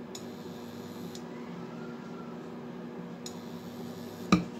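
Steady low room hum with a single sharp click about four seconds in, while oil is poured onto flour in a bowl. The pour itself makes little sound.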